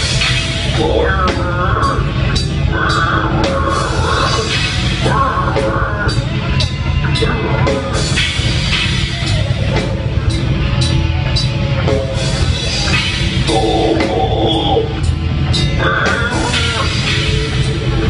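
Live metal band playing loudly: bass guitar and drum kit under a dense wall of sound, with drum hits throughout and no break.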